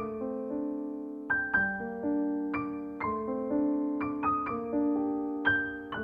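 Background piano music: single notes and chords struck a few times a second and left to ring.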